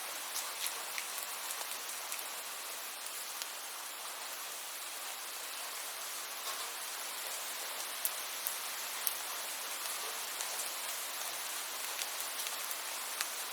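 Steady rain: an even hiss of falling rain with scattered sharp ticks of individual drops striking a surface.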